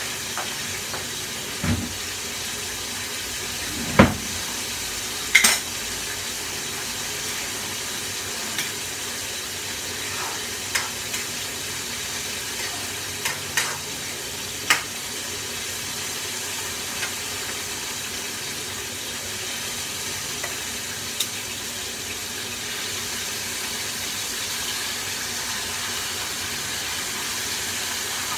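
Chicken frying in hot oil in a pan: a steady sizzle, with scattered clicks and knocks of metal tongs against the pan, the loudest about four seconds in.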